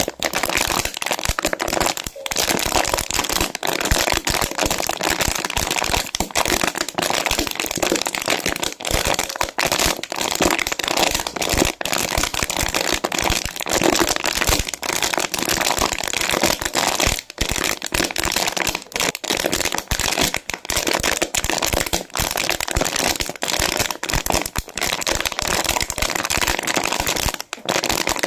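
Thin clear plastic 16.9 fl oz water bottle, capped, being squeezed and twisted in the hands: a loud, continuous crinkling and crackling of the crumpling plastic walls, with many sharp snaps and only brief pauses.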